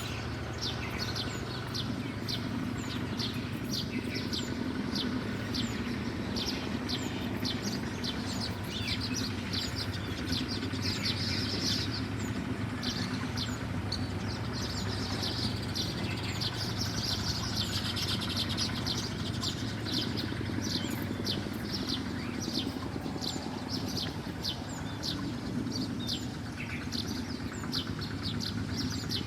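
Small birds chirping: a fast, continuous run of short, high chirps, several a second, over a steady low hum.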